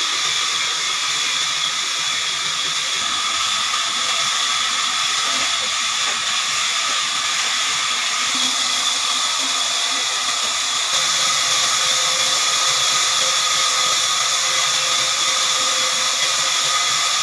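Horizontal band sawmill running through a log: a steady, high hiss with a faint steady whine in it, getting a little louder about eleven seconds in.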